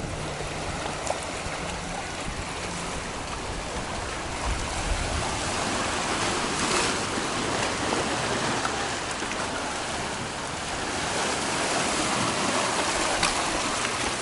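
Small sea waves washing in and out among shoreline rocks: a steady rush of water that swells louder a couple of times.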